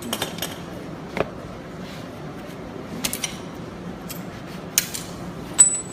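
Metal hardware and tools clinking and knocking as they are handled: about five separate clinks, the loudest near the end with a brief high ring.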